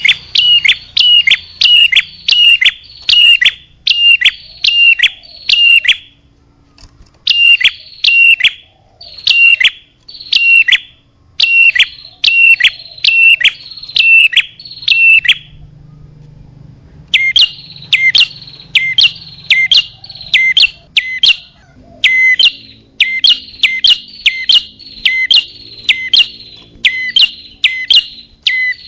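Bird-lure recording of a small bird giving loud, sharp chirps, about two a second, in runs of several seconds with short pauses between them. The call is played to lure small birds, prinias (prenjak) above all.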